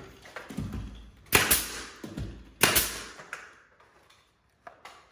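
Pneumatic nail gun firing twice, about a second and a quarter apart, each shot a sharp bang with a short hiss trailing off, fastening crown molding.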